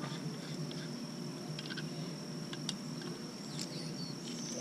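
A steady high-pitched whine over a low background hum, with a few faint, irregular light clicks of metal tools working on a bicycle pedal.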